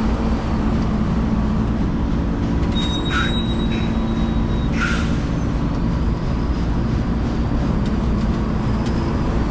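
JCB tractor's diesel engine running steadily as it works a Krone RX forage loader wagon. Two short, sharp high-pitched sounds come about three and five seconds in.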